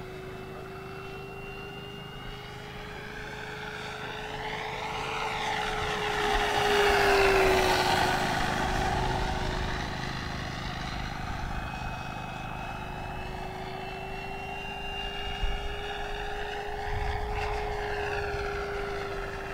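Electric FMS F4U Corsair RC model, its brushless motor driving a four-bladed 18x11 propeller, droning as it flies past. The steady hum swells to its loudest about seven seconds in, drops in pitch as the plane passes, fades, then builds again near the end. There is a brief tap about fifteen seconds in.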